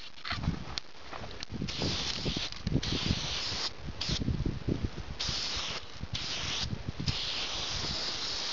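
360 aerosol spray paint can spraying in short bursts, a hiss that starts and stops several times, the longest run near the end.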